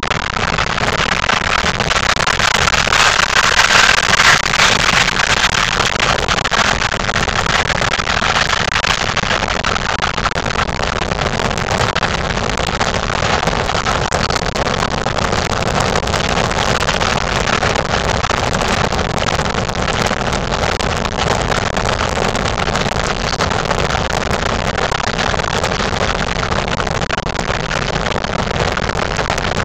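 Steady rushing road and wind noise of a car driving at highway speed, heard from inside the car, a little louder about four seconds in.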